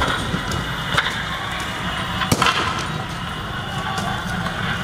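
Three sharp bangs, about a second apart near the start, over a steady noisy din of a street riot.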